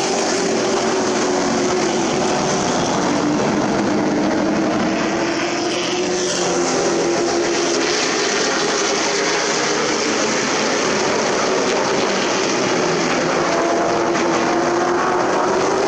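Super Truck race engines running at speed around a short oval track, several engine notes rising and falling as the trucks circulate.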